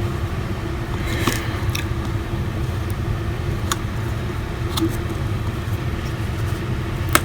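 Steady low background hum with a faint held tone, broken by a few light clicks and taps from handling a small phone.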